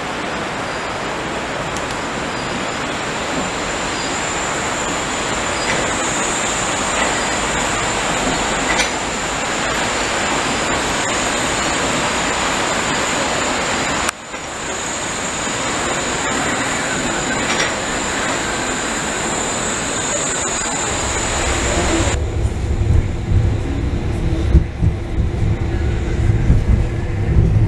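Wuppertal Schwebebahn suspension-railway car running on its overhead steel rail: a steady rolling rush with a high ringing band in it. About 22 seconds in, this gives way to a deep, uneven rumble with knocks, heard from aboard a moving car.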